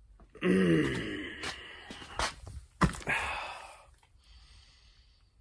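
A man's drawn-out wordless groan, falling in pitch, followed by a few sharp knocks, the loudest near the three-second mark, and then a breathy exhale that fades away.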